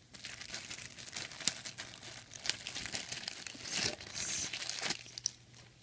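Thin clear plastic accessory bag crinkling and tearing as it is handled and pulled open by hand. The crackle comes in irregular bursts, loudest in the middle, and dies down near the end.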